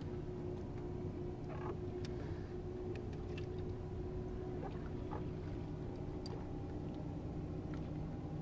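Electric trolling motor on a bass boat running steadily, a low even hum with a steady tone, with a few faint clicks over it.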